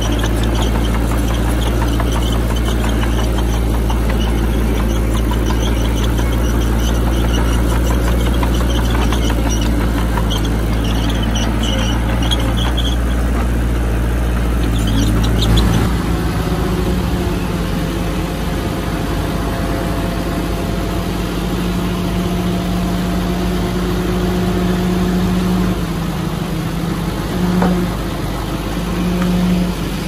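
Heavy diesel earthmoving machinery running steadily, with short high squeaks in the first half. About halfway the sound changes abruptly to a different steady engine note.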